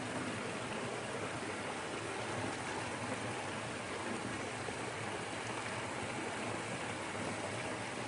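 Small creek waterfall pouring over a fallen log into a shallow pool: a steady rush and splash of falling water.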